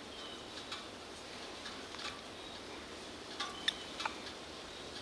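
Faint, irregular small clicks and ticks, with two brief high chirps.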